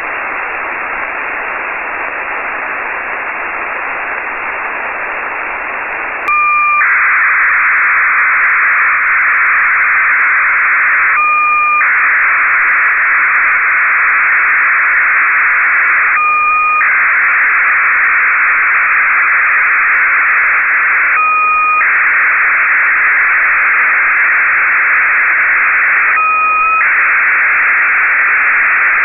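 Radio receiver hiss, then about six seconds in the satellite's 1200 bit/s BPSK telemetry signal starts suddenly as the receiver lands on NAYIF-1's beacon. It is a steady, louder band of data noise, broken every five seconds by a half-second pair of steady tones, one high and one lower, marking each data frame.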